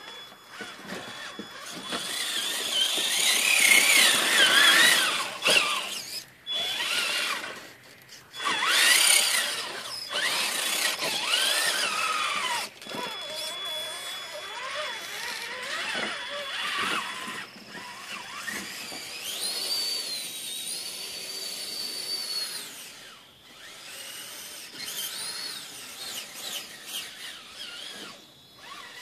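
Traxxas Summit RC truck's electric motor and drivetrain whining in spurts as it crawls over rocks, the pitch rising and falling with the throttle.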